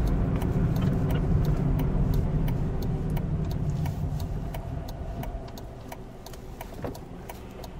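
Citroën C1 city car heard from inside the cabin: engine and road noise fading as the car slows into a right turn, with the turn-signal relay clicking at an even pace.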